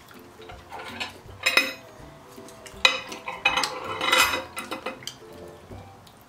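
Wooden chopsticks clicking and scraping against a white serving plate while picking at a deep-fried fish: a handful of sharp clicks with a short ring in the middle, and a scratchy stretch near the last of them.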